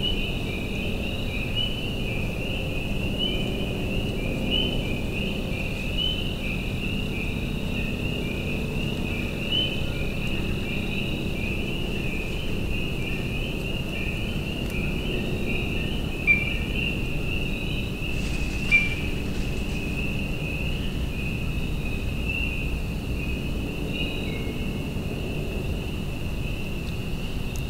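A steady evening chorus of crickets chirping, many high, short chirps overlapping without a break, over a low background rumble. Two short knocks come a couple of seconds apart, about two-thirds of the way through.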